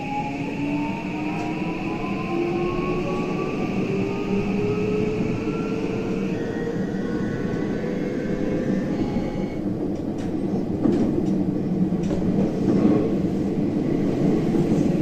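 A JR West 323 series train's Mitsubishi full-SiC VVVF inverter and traction motors whining as the train accelerates, with several tones rising in pitch together. A high steady inverter tone steps down to a lower one about six seconds in. The motor whine fades out about ten seconds in, leaving wheel and rail running noise with a few clicks.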